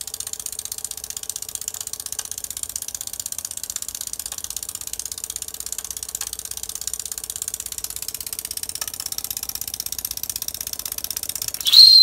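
Brass horizontal live-steam stationary engine running steadily on steam, with a fast, even beat from its moving parts and exhaust. Near the end the boiler's steam whistle is opened: a loud, high whistle that rises briefly, then holds steady.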